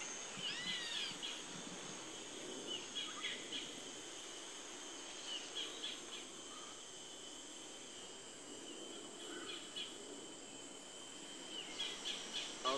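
Tropical rainforest ambience: a steady high-pitched insect drone, with bird calls over it. There are a few whistled glides about half a second in, then short chirps every few seconds.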